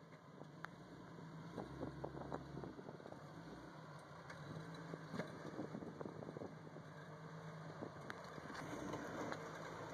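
Jeep Cherokee XJ's engine running at low revs as it crawls over boulders, with scattered clicks and knocks of the tyres and underbody working over rock. It grows steadily louder as the Jeep comes closer.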